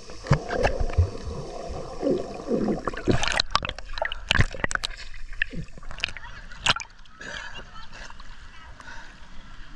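Water splashing and sloshing close by, with irregular sharp splashes and gurgling.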